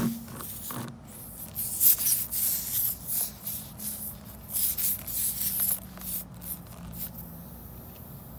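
Irregular scratching and rubbing from hand tools of a tire plug kit being worked at a puncture, with short hissy strokes coming and going for several seconds.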